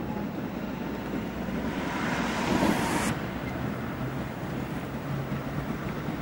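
Two-car Tatra T3 tram set running toward the microphone: a steady rumble with wind on the microphone. A hiss builds about two seconds in and cuts off sharply about a second later, and a low steady hum sets in soon after.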